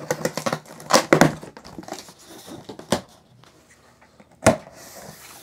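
A cardboard box being opened: its top flaps are cut and pulled up, giving a few sharp cardboard knocks and scrapes with some rustling. The loudest knock comes near the end.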